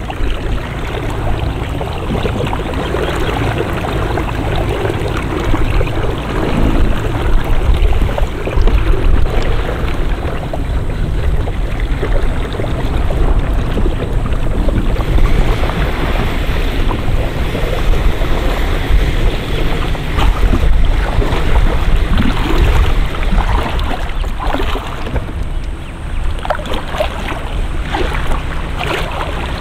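Wind buffeting the microphone over water sloshing and splashing around a kayak, with a run of sharp knocks and clicks near the end.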